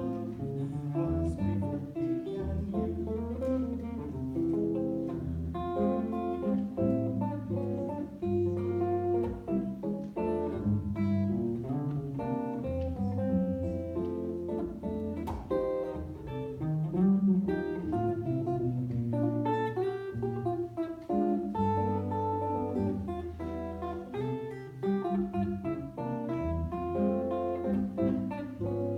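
Solo jazz guitar playing an instrumental passage without singing: chords and melody notes over low bass notes.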